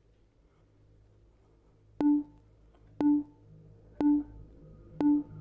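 Electronic workout timer beeping four times, one short beep a second, starting about two seconds in: a countdown to the end of a timed hold.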